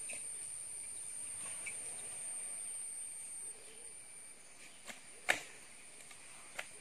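Steady high-pitched insect drone that stops about halfway through, followed by a few short sharp snaps, the loudest about three-quarters of the way in.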